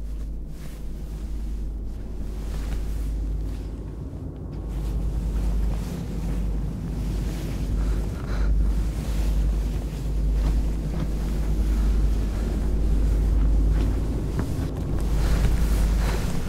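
A deep, rumbling ambient drone, mostly very low in pitch, that swells and ebbs and grows louder from about six seconds in.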